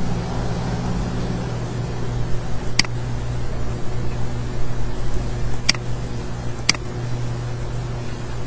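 Steady low hum and hiss of room or machine noise, with three sharp computer-mouse clicks, the last two about a second apart.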